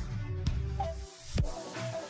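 Background music with a beat about twice a second; the bass drops out about a second in.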